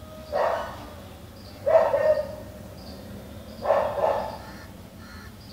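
Three loud animal calls, each about half a second long, spaced a second and a half to two seconds apart.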